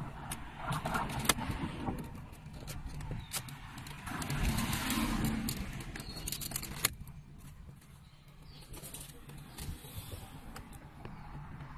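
Red plastic pry tool working at the dashboard trim around a Jaguar XJ's infotainment screen: scattered clicks and knocks of plastic, with stretches of scraping and rubbing as the trim is levered and handled.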